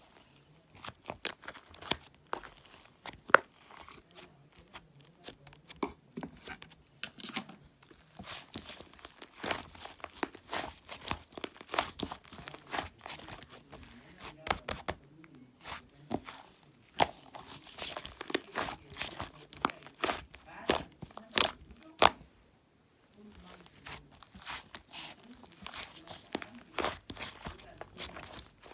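Fluffy slime being squeezed, stretched and poked by hand, giving irregular crackling and popping clicks with a short pause about three quarters of the way through.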